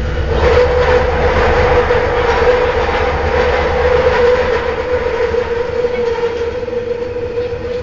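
Kelana Jaya Line LRT train running along its elevated track, heard from inside the car: a steady rumble and hiss with a constant whine. It grows louder about half a second in and eases off a little near the end.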